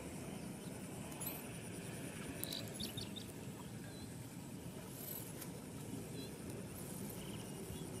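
Faint outdoor ambience: a thin steady high hum and short high chirps every couple of seconds over a steady low rumble.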